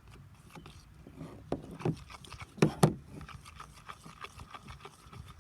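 A stirring tool scraping and clicking against a bowl while a thick mixture of glue, shaving foam and cornstarch is stirred into slime, with a few louder knocks between about one and a half and three seconds in.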